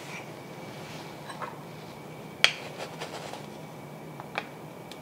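Small clicks and knocks of a wooden salt cellar being opened and a metal measuring spoon scooping kosher salt from it, with one sharper knock about halfway through.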